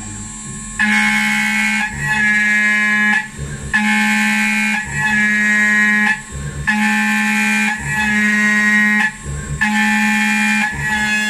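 CNC router spindle at 12,000 rpm driving a 10 mm roughing end mill through aluminium, 1 mm deep at 3000 mm/min. It gives a loud, high-pitched whine in four passes of about two and a half seconds each. Between passes there are short, quieter breaks with low knocks as the cutter leaves the cut and steps over.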